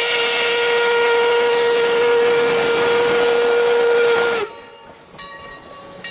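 Steam locomotive whistle: one long, steady blast over hissing steam, cutting off about four and a half seconds in.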